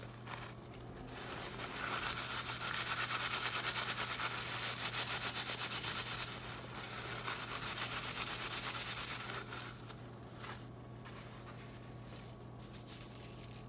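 Paper towel rubbed briskly back and forth over a handful of fresh lemongrass blades, a quick scratchy rubbing that bruises the blades to release their oil. The rubbing runs from about two seconds in, eases off near ten seconds, and gives way to quieter rustling.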